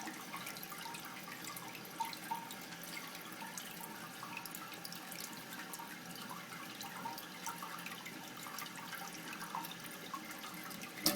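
Water trickling and dripping in an open toilet tank, steady, with small clicks and taps as the flapper chain is handled, and one sharp click near the end.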